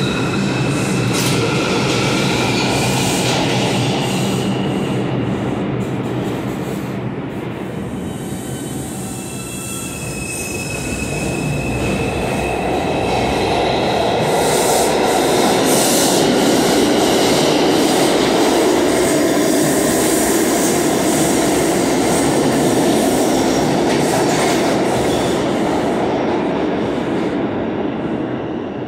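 R142 subway train pulling out of the station. Its electric motors whine steadily at first. Then the wheels rumble, squeal and clack over rail joints as the cars pass close by, and the sound fades near the end as the train goes into the tunnel.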